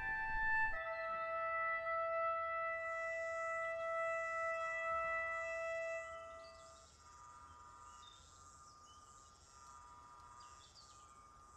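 Background music of long held notes, dropping much quieter about six seconds in.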